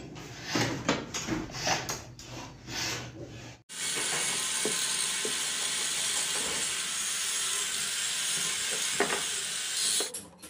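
Metal clicking and rattling from a sewing machine head's mechanism being handled and fitted by hand. About three and a half seconds in, this gives way to a steady hiss with a few faint ticks, lasting some six seconds.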